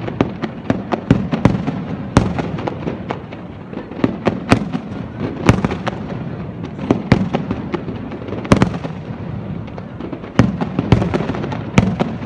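Aerial fireworks display: shells bursting in quick, irregular succession, a dense string of bangs and crackles with a handful of much louder bangs every second or two.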